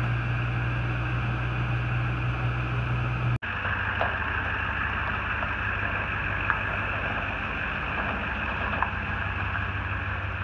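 A vehicle engine idling with a steady low hum. About a third of the way in it breaks off for an instant and picks up again with a slightly different tone.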